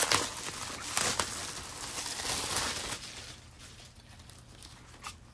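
Plastic packaging rustling and crinkling as a packaged zippered bag is handled and opened, busiest in the first three seconds and then quieter.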